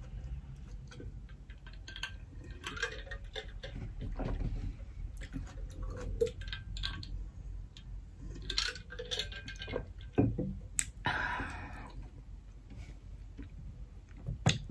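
A person gulping and swallowing water from a bottle, with many small wet mouth clicks and light knocks, and a short rushing noise about ten seconds in.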